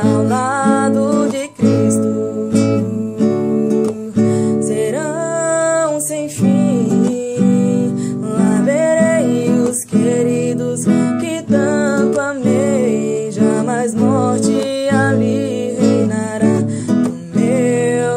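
A woman singing solo, accompanying herself on an acoustic guitar.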